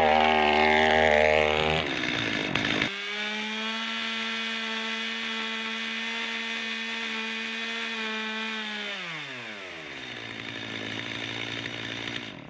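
Stihl two-stroke chainsaw swung through an onion at full throttle, louder and rougher for the first couple of seconds. It then runs steadily at high revs. About nine seconds in the revs fall and settle at a lower steady speed until it stops.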